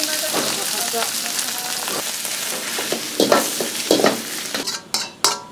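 Shredded cabbage sizzling loudly in a hot oiled wok as it is stir-fried, with the metal ladle and wok clanking now and then. Near the end the sizzle dies down, leaving a run of sharp ladle-on-wok clanks.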